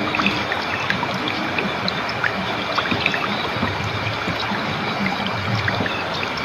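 Flowing water trickling and babbling steadily, with many small bright plinks of drops and bubbles running through it.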